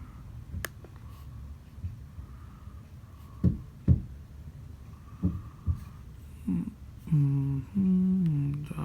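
A man humming a few low notes near the end, after a click and several soft low thumps.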